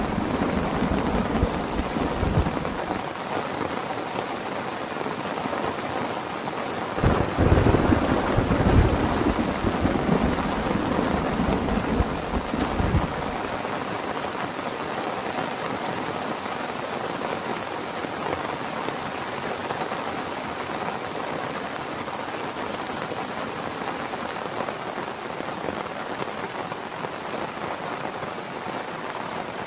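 Heavy rain falling steadily, with thunder rumbling at the start and a louder thunder rumble beginning about seven seconds in that lasts several seconds before dying away.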